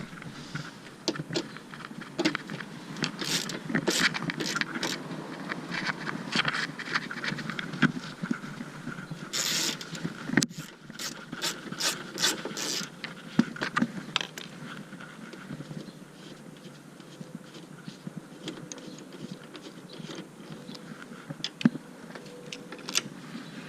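10 mm hand ratchet clicking in irregular runs while unscrewing the headlight assembly's mounting bolts, with scrapes and knocks of metal parts being handled.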